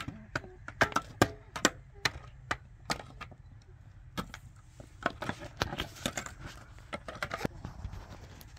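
Pickaxes striking rocky, stony soil: sharp irregular blows from several diggers working out of step, a couple of strikes a second, coming thicker in the second half.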